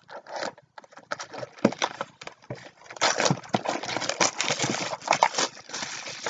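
Packaging being handled and unwrapped: plastic wrap crinkling and cardboard rustling, with quick clicks and taps. It is sparse at first and turns into dense crinkling about halfway in.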